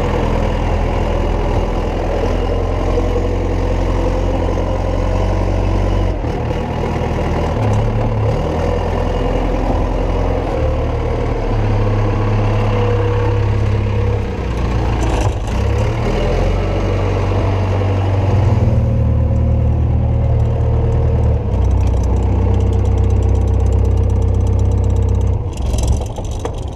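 Diesel engine of a JCB telehandler heard from its doorless cab, working loud and steady, its revs rising and falling as it pushes up a heap of crimped grain in the pit.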